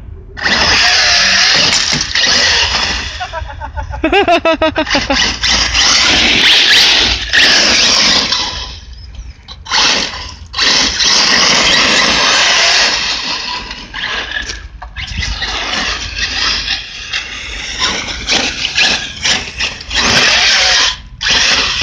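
Arrma Talion electric RC buggy driven in repeated hard throttle bursts: its brushless motor and drivetrain whine while its tyres spin on loose dirt and gravel, with short let-offs between runs. A pitched whine rises and falls about four seconds in.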